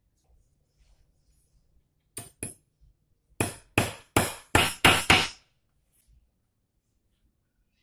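A hammer striking: two light taps, then six hard blows in quick succession, about three a second.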